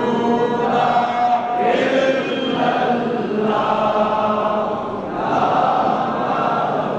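A large crowd of men chanting together in unison, in held phrases that repeat about every two seconds.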